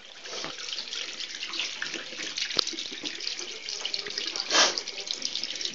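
Water running from a tap into a bathroom sink, a steady splashing rush with a louder splash about four and a half seconds in.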